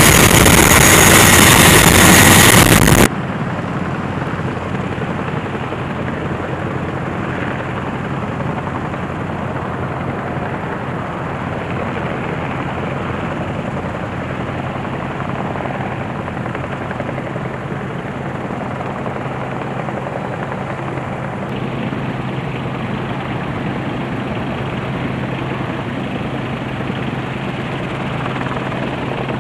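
A loud rushing roar for the first three seconds stops abruptly. Then a helicopter approaches at a distance: steady rotor and turbine engine sound with a constant low hum.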